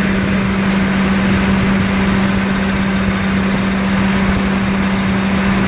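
Ford 4.6-litre V8 of a 2008 Crown Victoria Police Interceptor idling steadily, with a constant low hum.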